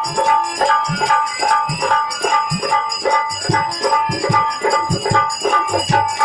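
Instrumental stage music: a fast, even beat of drum strokes with jingling percussion and a repeated melody note.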